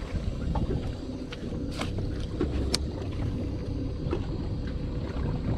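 Steady low rumble of wind and water around a small fishing boat, with a faint steady hum and a few light clicks and knocks, the sharpest near the middle.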